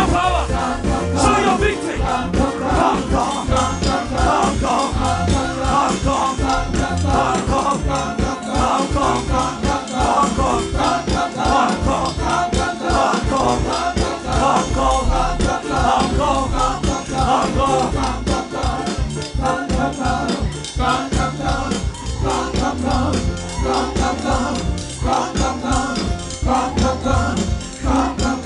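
Live gospel worship music from a band, with a deep bass and a steady shaker rhythm.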